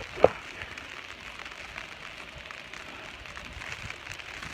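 Steady outdoor hiss during falling snow, with one short sharp knock just after the start.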